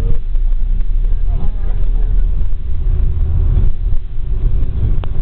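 Coach bus on the move, heard from inside the cabin: a steady low engine and road rumble with a faint hum. A single sharp click comes near the end.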